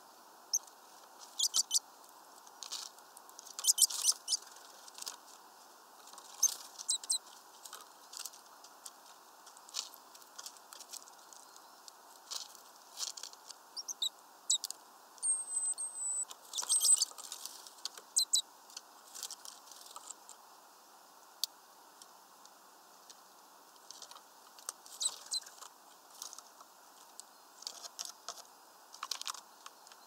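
Small birds feeding at a peanut and seed feeder: many irregular sharp clicks and scratches as beaks peck and claws grip the perches and mesh. There is one brief high chirp about halfway through.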